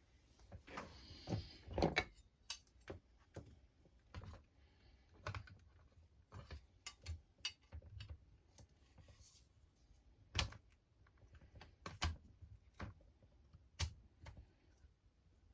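Scattered small clicks and taps of RC crawler parts being handled and fitted together by hand, with a stretch of rustling handling noise in the first two seconds and a few sharper clicks in the last third.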